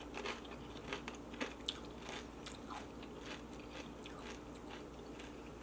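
A person chewing a mouthful of salsa-dipped tortilla chip, a run of soft, irregular crunches.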